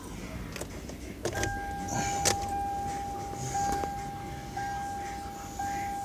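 A 2013 Hyundai Elantra's dashboard warning chime, a single steady tone that re-strikes about once a second and fades between strikes, starting a little over a second in after a few sharp clicks.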